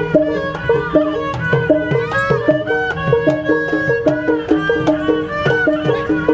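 Traditional Betawi ondel-ondel music with a quick repeating melodic figure, a higher melody line above it and steady drum beats.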